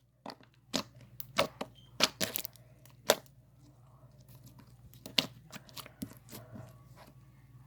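Green slime being squished and stretched by hand, giving irregular sharp pops and clicks, with quieter handling in the second half.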